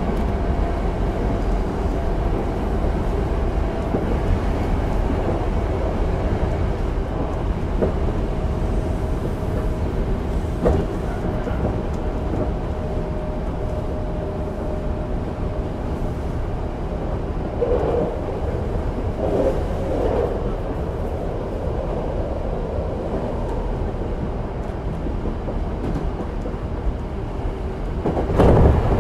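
Running sound inside a Hankyu 8000 series electric train at speed: steady wheel-and-rail rumble with a faint tone that slowly falls in pitch. There is a sudden louder rush of noise near the end.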